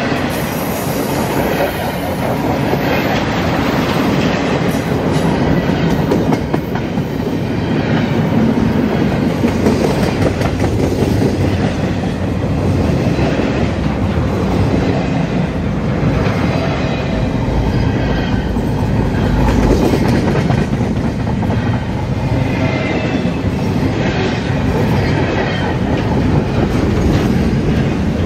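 CSX freight cars rolling past at close range: a steady, loud rumble of steel wheels on the rails, with repeated clatter from the wheels and trucks.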